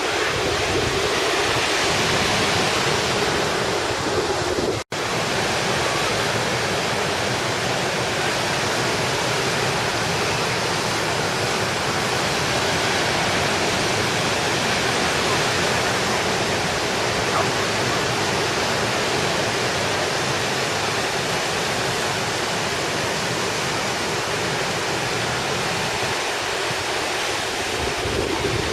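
Steady wash of sea surf with wind, an even noise that holds level throughout and drops out for an instant about five seconds in.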